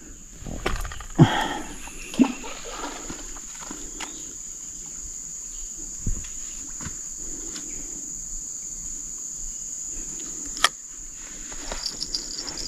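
Steady high-pitched drone of insects in the riverside bush. A few sharp knocks and clicks come from the fishing rod and line being handled as it is cast and set down, the loudest about a second in.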